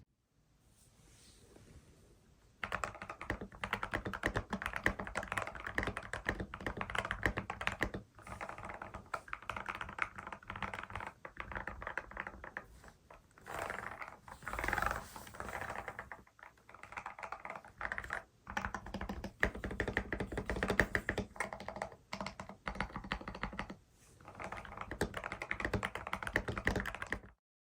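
Continuous typing on a modded Ractous RTK61BP mechanical keyboard with lubricated stabilizers: a dense run of key clacks that starts about two and a half seconds in and stops abruptly just before the end.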